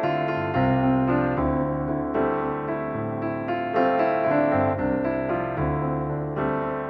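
Background music: gentle piano or electric-piano chords, played at an unhurried, steady pace.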